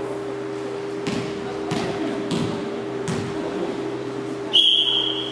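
A referee's whistle blown once near the end: a single steady high note of about a second, the signal for the serve in an indoor volleyball game. Before it, a few soft thuds echo in the large hall.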